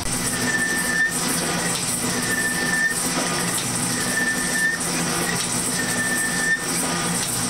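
Smith & Mills metal shaper running, its ram stroking back and forth, about one stroke every 1.8 seconds, with a short high tone on each stroke as the tool cuts aluminum. Four strokes in all.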